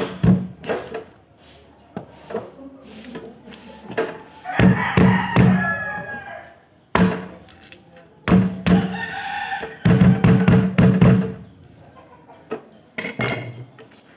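A kitchen knife striking a cutting board in quick bursts of blows, chopping the sauce ingredients. A rooster crows in the background about five seconds in.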